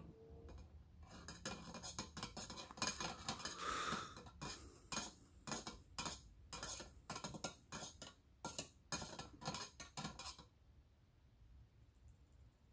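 Small steel part on a wire clinking and tapping against the inside of a tin can as it is swished through motor oil, a quick irregular run of light metallic clicks that stops about ten seconds in.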